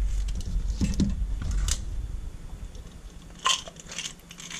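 Handling noise from tools and small parts on a workbench: a low rumble with a few small clicks, then a sharper click about three and a half seconds in.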